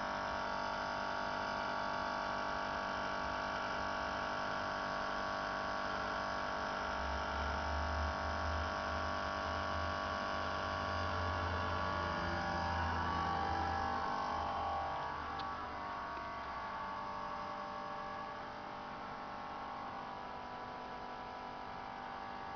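Motor of a new Gafa 370A running with a steady hum made of several tones, a noise the owner considers a fault in the motor. A lower buzz joins in from about 7 to 14 seconds in, and the sound eases a little after that.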